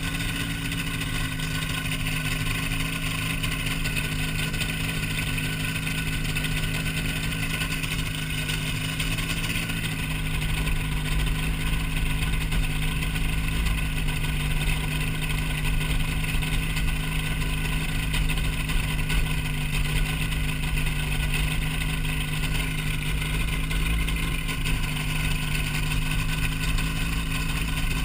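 Hy-Tek Hurricane ultralight airplane's engine and propeller droning steadily in flight. A low rumble grows stronger about ten seconds in.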